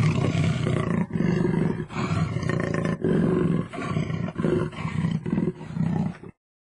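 A lion roaring in a series of deep roars. The first few are long and the later ones grow shorter and closer together, and the sound cuts off suddenly shortly before the end.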